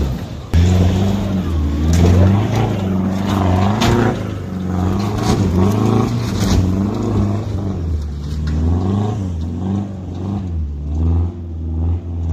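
Toyota Hilux (N70) engine revving hard off-road, its pitch rising and falling again and again as the throttle is worked, with a few sharp knocks.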